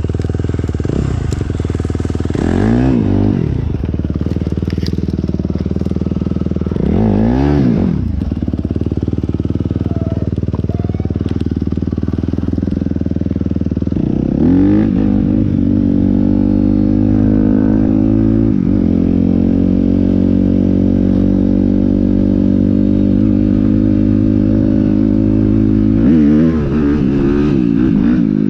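Motorcycle engines running, rising and falling in pitch four times with revs or passes, and holding a steady note in between.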